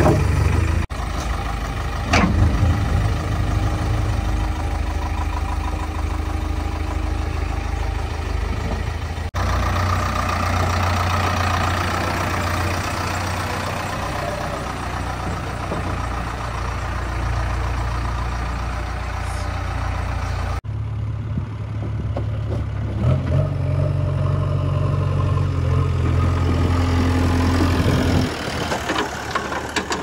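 Diesel engines of a JCB 3DX backhoe loader and a tractor running steadily at work. The engine note jumps abruptly three times, and near the end the steady hum drops away and the sound gets quieter.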